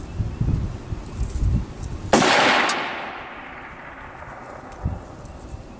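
A single rifle shot from a Ruger AR-15 in 5.56 about two seconds in, its report trailing away over a second or more. Wind buffets the microphone before the shot.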